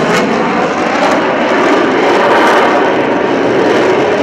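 Lockheed Martin F-22 Raptor in flight, its twin Pratt & Whitney F119 turbofan engines making a loud, steady jet roar.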